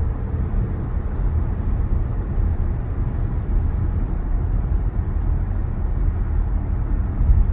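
Steady low road and tyre rumble with wind noise, heard from inside the cabin of a 2022 Tesla Model Y electric car on the move. No motor whine stands out.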